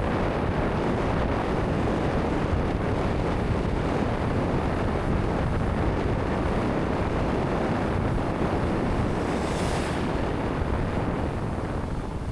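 Wind rushing over an action camera's microphone, a steady dense roar with sea surf mixed in. A brief higher hiss swells about nine and a half seconds in, and the level drops at the very end.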